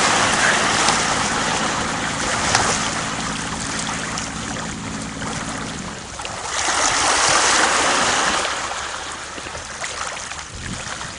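Muddy pond water rushing and sloshing around a half-submerged pickup truck, with the truck's engine running at a steady low hum that stops about six seconds in. The water noise swells louder around seven seconds in, then fades.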